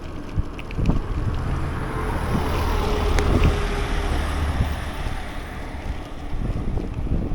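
Wind buffeting the microphone of a moving scooter, over a steady low engine and road rumble that swells about a second in.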